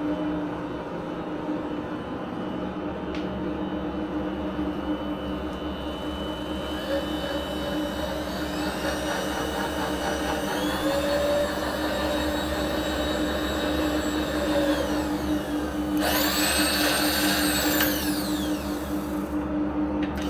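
Align power feed motor driving the Bridgeport milling machine's X-axis table, over a steady hum. Its whine rises in pitch about six seconds in, holds, and falls away near sixteen seconds. Then comes a louder, higher run of about two seconds that winds down, and a sharp click near the end.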